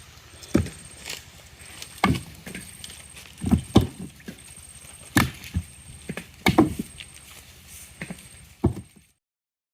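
Irregular hard knocks and thuds on wood, about one a second, some in quick pairs. The sound cuts off abruptly near the end.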